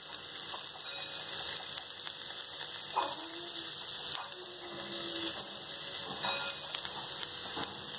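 Crushed ginger and garlic sizzling in hot oil with cumin seeds in a nonstick pan: a steady frying hiss full of fine crackles.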